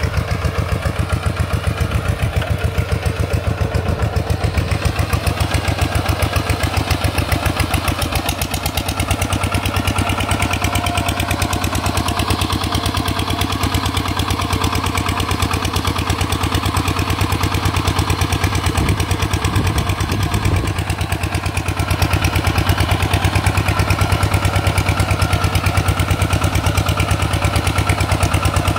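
RT 140 Plus single-cylinder diesel engine running steadily with a fast, even firing beat. It gets a little louder about three-quarters of the way through.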